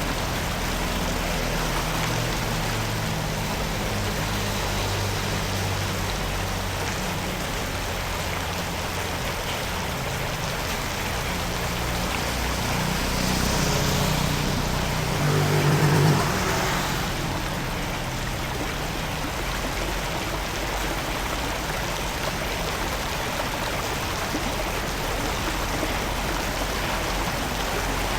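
Floodwater running steadily, with a low hum underneath. The sound swells louder for a few seconds about halfway through.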